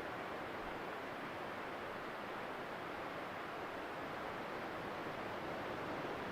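Ocean surf on a beach, a steady even wash of noise with no distinct wave breaks.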